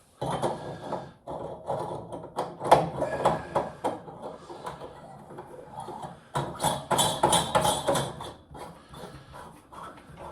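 Plastic plumbing fittings being handled and screwed together: a run of knocks and clicks, with a longer rasping, scraping stretch about six to eight seconds in.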